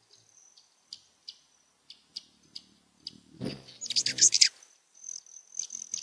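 Hummingbirds calling: sparse sharp high chips, then a loud burst of squeaky falling chatter about four seconds in with a brief low hum under it, and a thin steady high note near the end.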